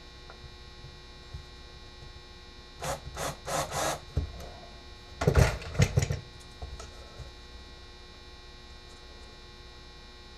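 A wooden board being handled and rubbed on a workbench: short scraping strokes in two clusters, about three and about five and a half seconds in, over a steady electrical hum.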